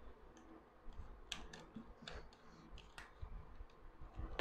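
Black plastic parts of a soldering-station magnifier, the small lens ring and its clip-on holder, handled and fitted together, giving a handful of faint, sharp clicks.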